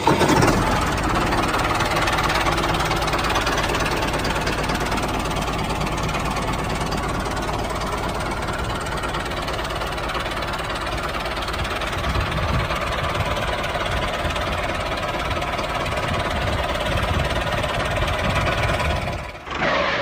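Tractor engine running steadily at a low, even pace, stopping near the end.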